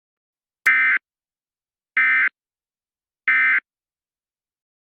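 Emergency Alert System end-of-message signal: three short, buzzy bursts of SAME digital data tones about a second apart, marking the end of the alert.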